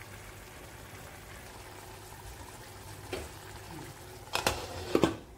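Chicken masala simmering in a pot, a steady bubbling hiss. A light knock comes about three seconds in, then two louder metal clanks near the end as a lid is set on the pot.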